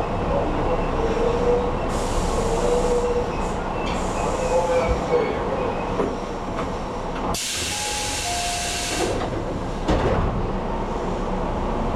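Tobu 8000 series electric train running, heard from the driver's cab: steady rumble of wheels on rail with a wavering motor and gear whine. About seven seconds in, a loud burst of air hiss lasts a second and a half, and a couple of single knocks come from the rails.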